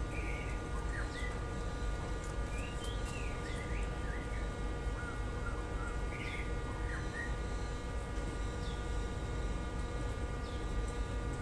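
Small birds chirping in short, high, irregular calls, over a steady hum and a constant low rumble.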